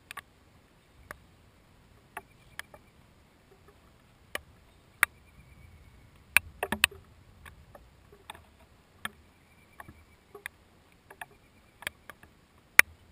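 Raindrops striking a GoPro's waterproof housing: sharp, irregular clicks and taps, several close together a little past the middle, over a quiet background.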